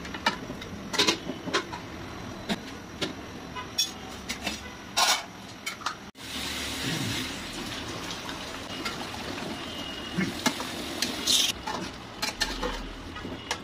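A spatula scrapes and knocks against an aluminium pot as chicken pieces are turned in gravy, with many sharp clacks in the first half. After about six seconds this gives way to a steadier sizzle of the simmering gravy, broken by a few more knocks of the spatula.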